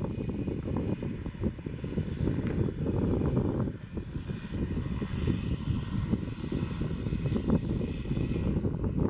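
Twin turboprop engines of an Embraer EMB-121 Xingu running at taxi power as the aircraft turns on the runway: a low rumble with a thin, steady high whine, dipping briefly in loudness near the middle.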